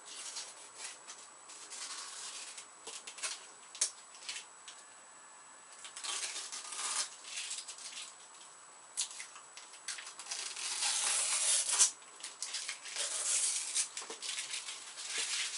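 Protective plastic film being peeled off new computer equipment, crinkling and crackling in irregular bursts, busiest and loudest about two-thirds of the way through.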